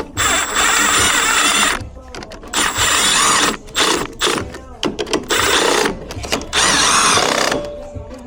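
A hand-held power tool, such as a cordless drill or driver, running in several bursts of one to two seconds with a high whine, stopping and starting between them.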